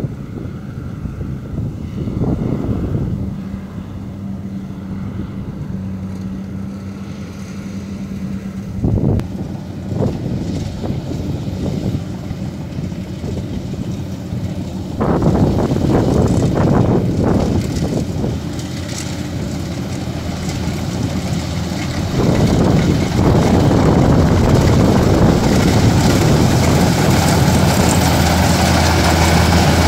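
Kubota DC-105X rice combine harvester running as it cuts and threshes: a steady engine hum under machinery noise. It grows louder in two steps, about halfway through and again about two-thirds through.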